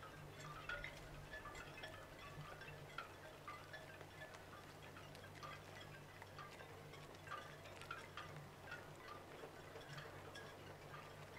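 Faint, irregular light clinks with a short ring, about one or two a second, over a low steady hum.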